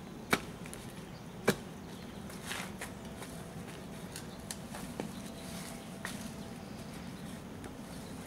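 Two sharp knocks of a hand tool worked into the soil at a sidewalk's edge, a little over a second apart, followed by faint scattered ticks and scraping.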